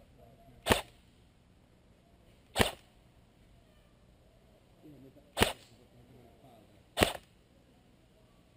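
Four sharp single shots from an airsoft SVD Dragunov sniper rifle replica, fired semi-automatically at uneven gaps of about two to three seconds.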